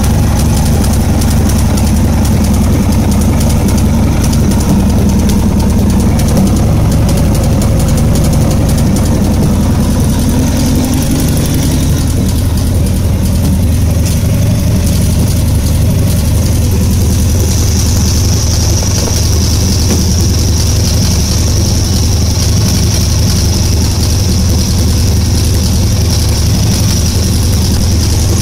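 Harley-Davidson V-twin engine idling steadily, with a noise the owner suspects is abnormal. A steady high-pitched tone joins about two-thirds of the way through.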